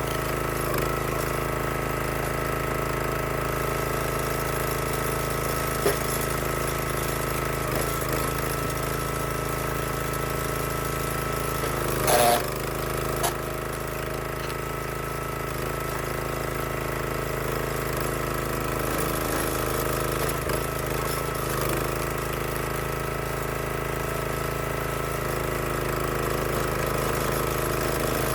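Small gas engine of a log splitter running steadily. About halfway through there is a loud, sharp crack, followed a second later by a smaller knock.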